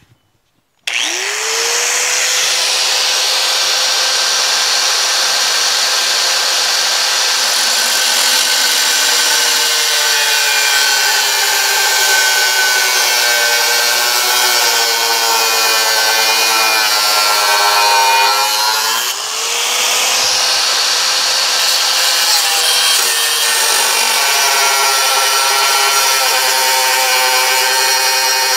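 Corded angle grinder with a cutoff wheel, switched on about a second in, spinning up and cutting through a steel bracket. Its whine sinks gradually in pitch as the wheel bears into the metal, eases off briefly about two-thirds through and rises again, then carries on cutting.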